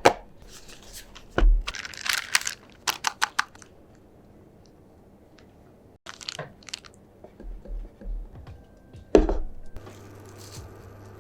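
Packaging of a chocolate-making kit being handled and opened: runs of sharp clicks, crinkling and tearing, with one louder knock about nine seconds in.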